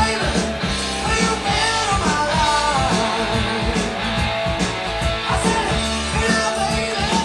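Rock music: guitar melody over bass notes and a steady drum beat.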